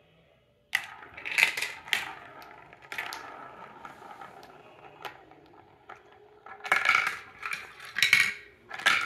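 Plastic balls of a VTech Marble Rush marble run clattering along the plastic track and rolling around a funnel bowl: a steady rolling whir broken by sharp clacks. It starts suddenly under a second in, and the clacking bunches up again near the end.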